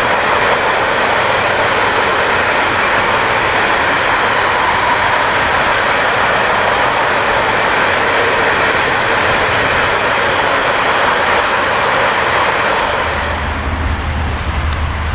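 Loud, steady rushing and rumbling of a long freight train's enclosed car-transport wagons rolling past close by, wheels on rail. About two seconds before the end the sound changes to a quieter, lower rumble.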